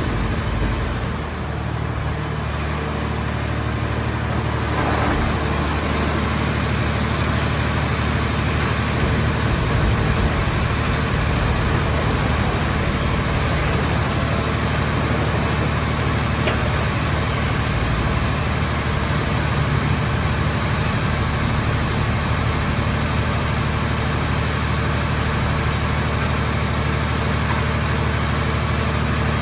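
Engine of a mobile car-shell scrap baler running steadily at an even speed, a deep constant hum.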